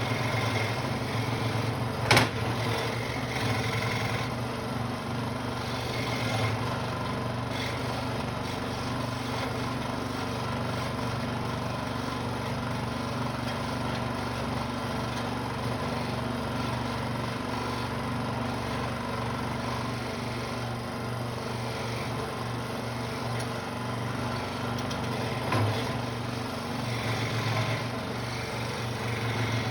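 Central Machinery scroll saw running steadily as its blade cuts through wood, with one sharp click about two seconds in.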